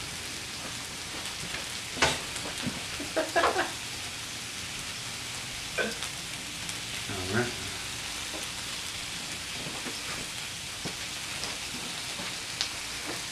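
Beef burger patties sizzling steadily as they fry in their grease, with a few short sharp knocks over the hiss.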